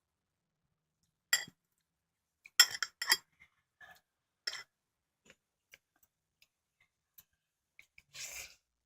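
Utensils clinking against a bowl while eating ramen: a sharp clink about a second and a half in, a quick run of clinks around three seconds, another a little later, then scattered faint ticks and a short hissing noise near the end.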